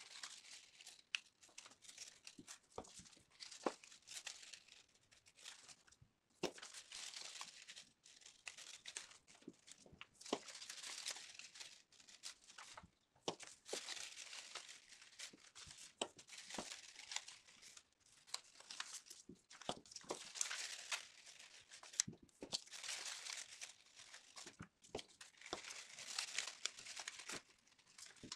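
Faint rustling and crinkling of colored paper strips being curled into loops and linked into a paper chain, coming and going in short patches, with scattered small clicks and taps.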